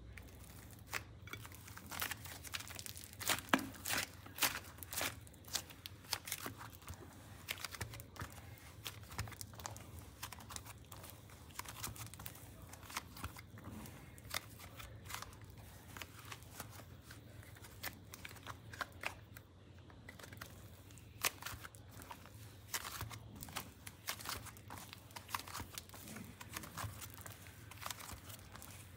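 Hands pressing together, kneading and stretching a mass of soft clay slime. The slime gives irregular sticky crackles and tearing sounds as it is pulled apart and folded, in clusters of sharp clicks.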